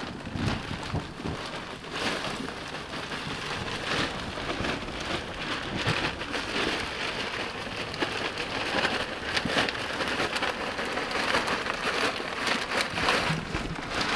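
Black shredded-wood mulch pouring out of its plastic bag onto a garden bed: a steady hiss of many small pieces landing.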